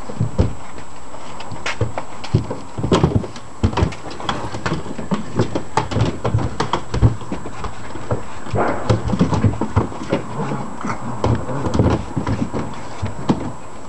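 Puppies playing on a hollow plastic hippo sandpit: irregular clicks, knocks and thumps of paws and claws scrabbling on the plastic lid.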